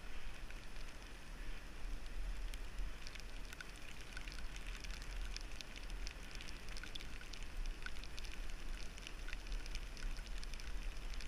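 Rain pattering on a bike-mounted action camera's housing, heard as irregular crackling taps that grow denser about three seconds in. Under it runs a steady low rumble of wind on the microphone and wet-road noise from riding in the rain.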